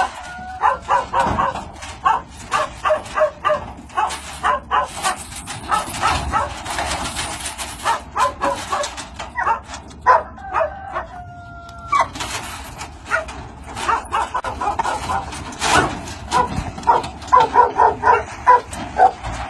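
Dogs barking over and over, many short barks in quick succession, with a brief drawn-out whine about ten to eleven seconds in.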